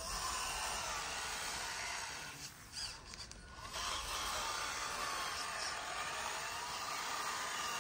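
Handmade scale-model Massey Ferguson 385 tractor running, its small motor and gears whining while the tractor and its cultivator grind through loose sand with a steady scraping hiss. The whine wavers in pitch and dips briefly about halfway through.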